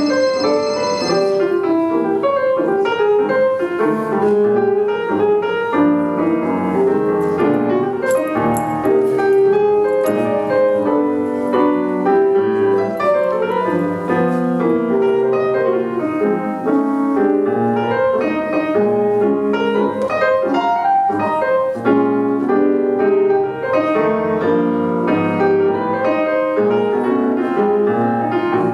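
Background piano music with a steady run of quick notes.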